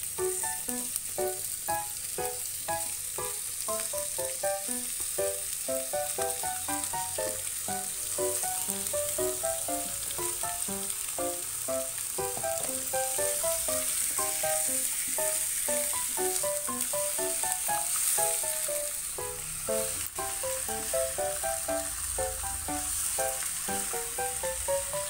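Food frying in a pan with a steady sizzle, under background music that plays a melody of short notes.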